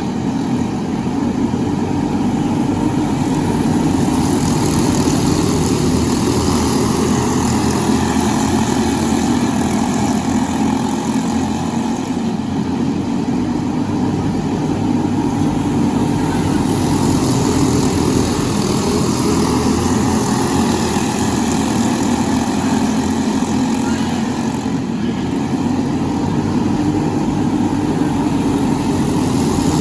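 Briggs & Stratton LO206 single-cylinder four-stroke kart engine running hard at racing speed. The sound rises and falls in a cycle of about twelve seconds.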